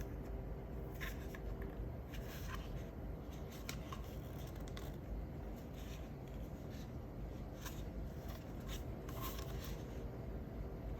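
Hands handling packaging and small items: scattered light clicks, taps and rustles over a low steady hum.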